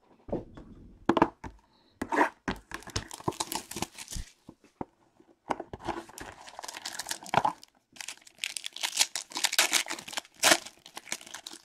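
Hands opening a 2018 Topps Tier One baseball card box. A few knocks and scrapes of the cardboard box come first, then three bouts of crinkling and tearing as the foil pack wrapper is pulled out and torn open.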